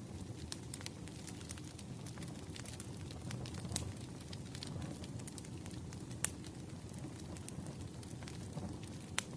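Wood fire crackling, a low steady rumble of burning logs with frequent sharp pops and snaps; the loudest pops come about six seconds in and again near the end.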